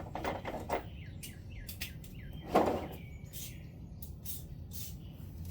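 Metal tool clicks and clinks with one louder knock about two and a half seconds in, as a 15 mm wrench is worked on the oil drain plug under the car. Small birds chirp in short falling notes.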